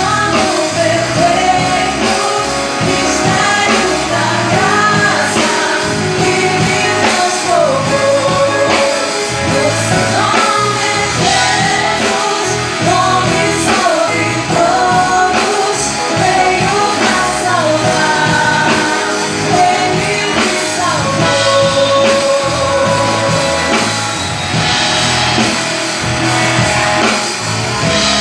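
A singer sings a song over band accompaniment of drums and guitar, with the melody held in long, gliding sung lines.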